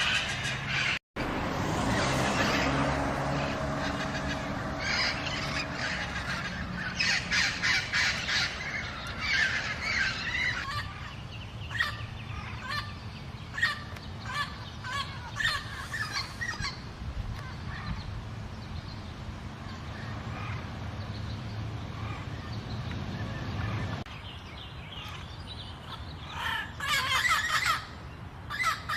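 Feral parrots calling: many short, harsh squawks and screeches, repeated throughout, over a low steady hum that drops away toward the end.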